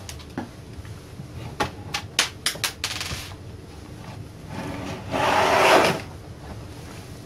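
Handling an LCD monitor on a desk: a string of light clicks and taps in the first three seconds, then a louder scraping rub about five seconds in as its plastic housing is laid down and slid across the desktop.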